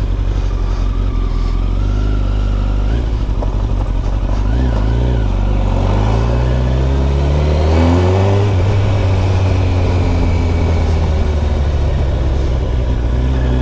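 Motorcycle engine running on the move, its revs climbing through the middle and then holding steady.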